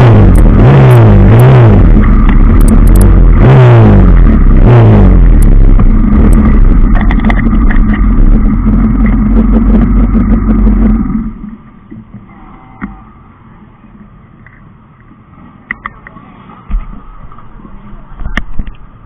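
Motorcycle engine blipped repeatedly while standing, the pitch rising and falling several times, then settling to a steadier run before cutting off suddenly about 11 seconds in. What remains is a faint hiss of light rain and a few small knocks.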